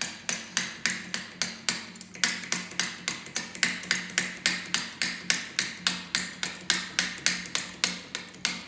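Hydraulic bottle jack being pumped up: rapid, regular metallic clicks, about three or four a second, over a faint steady hum.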